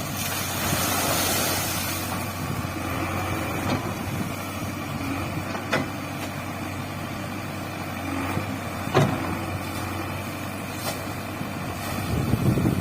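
JCB 3DX backhoe loader's diesel engine running steadily with a constant low hum, with a few sharp knocks about halfway through and near the end.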